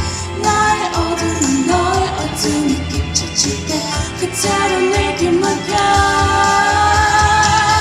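Pop song sung in Korean over a full backing track with a steady bass beat, ending on a long held note near the end.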